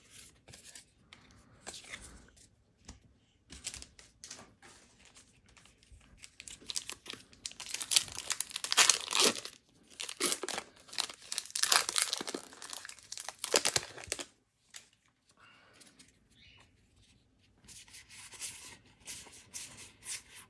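Foil wrapper of a Magic: The Gathering booster pack being torn open and crinkled, in a run of loud rips about six to fourteen seconds in, with softer rustling before and after.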